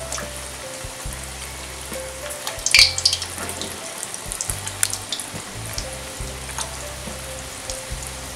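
Gulab jamun dough balls frying in hot oil in an aluminium kadhai: steady sizzling with scattered crackles, and a louder crackle about three seconds in.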